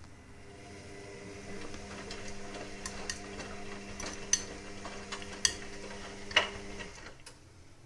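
Indesit WIXL143 washing machine running with a steady hum and scattered clicking, three sharper clicks in the second half, before the hum cuts off near the end. This is the clicking fault of a machine that stops without finishing its cycle while its door lock light flashes; the owner does not know the cause.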